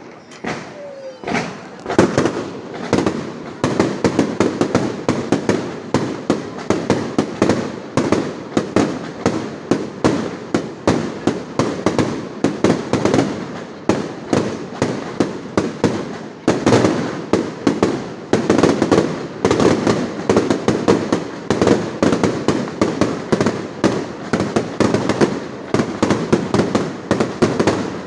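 Fireworks display: a few separate bangs, then from about two seconds in a dense, continuous barrage of shell bursts and crackle, several bangs a second.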